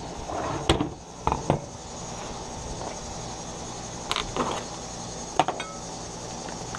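A few short, sharp clicks and knocks as seasoning containers are picked up and handled, over steady chirring of insects.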